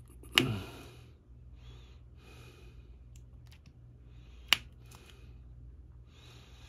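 Breathing close to the microphone: a series of short hissy breaths, with one sharp click about four and a half seconds in, over a steady low hum.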